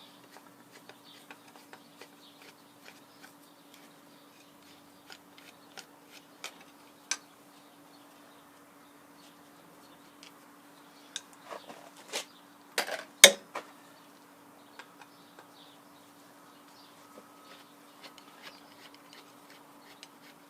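Metal gearbox parts being handled: scattered light clicks and taps, then a short cluster of louder metal knocks about two-thirds of the way through, over a faint steady hum.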